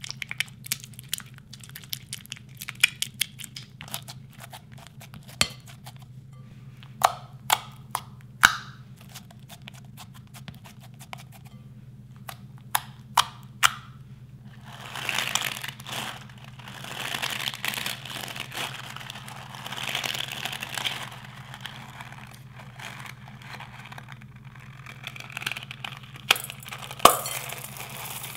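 A plastic spatula clicking and scraping against a glass mixing bowl in sharp separate taps. It gives way to several seconds of steady soft swishing as the clear slime is worked in the bowl. Near the end come a few crisp snips of scissors cutting into a rubber balloon. A low steady hum runs underneath.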